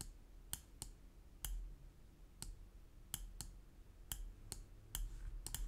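Computer mouse clicking: about a dozen short, sharp clicks at uneven intervals, with two in quick succession near the end.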